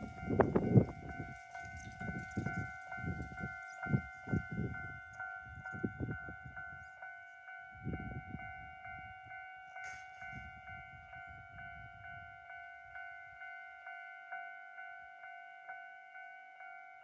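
Japanese railway level-crossing alarm with the standard JR electronic bell tone, ringing about twice a second. A Rinkai Line 70-000 series electric train rumbles and clatters over the rails for roughly the first twelve seconds, then fades, leaving only the alarm.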